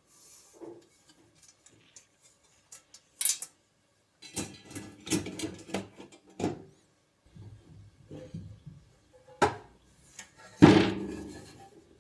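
Hard machine parts being handled during assembly: a string of light clicks and knocks, then one loud clunk near the end that rings briefly as it dies away.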